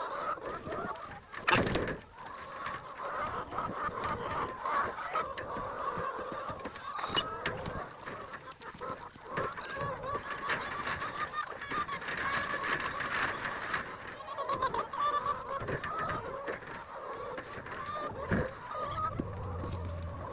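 A flock of laying hens clucking and chattering continuously, with light clicks of eggs being set into plastic egg flats and one sharp knock about a second and a half in.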